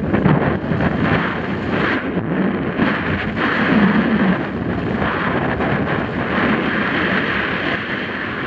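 Wind buffeting a helmet camera's microphone during a fast mountain-bike descent, with tyres rolling on a dirt trail and brief knocks and rattles from the bike.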